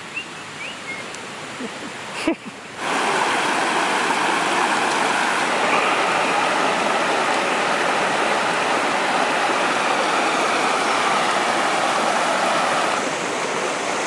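Rushing stream water, a steady, even rush that comes in suddenly about three seconds in and dips slightly near the end. Before it there is only a quieter forest background.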